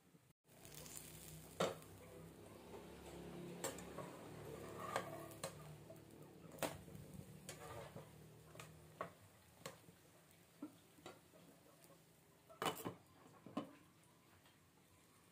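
Faint frying in a pan, with scattered light clinks and taps of a metal spatula and a glass pan lid against the frying pan, the loudest near the end.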